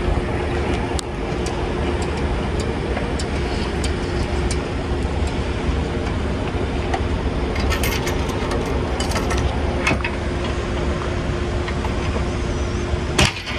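A steady motor hum with a low rumble and a faint steady tone, under scattered light metallic clicks from hitch hardware being handled, and one sharp knock near the end.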